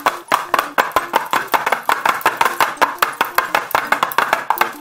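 Homemade paper-plate pellet drum (rattle drum) being twirled: pasta-tube pellets on strings strike the two paper plates in a rapid, even run of light taps.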